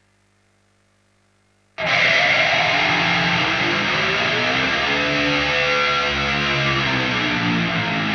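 Faint mains hum from the idle guitar signal chain, then about two seconds in a high-gain distorted electric guitar is struck and held, its pitch bent up and back down.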